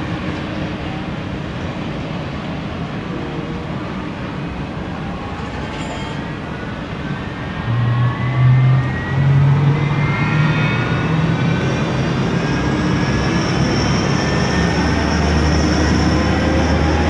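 Airbus A330 jet engine starting during pushback, its whine climbing slowly and steadily in pitch, with a high steady whine joining in later. Underneath runs a low mechanical hum that grows louder about eight seconds in.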